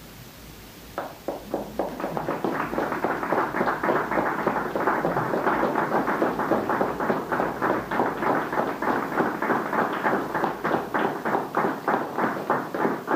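A long bamboo didgeridoo and a harmonium played together: a pulsing drone that starts about a second in and beats about four times a second.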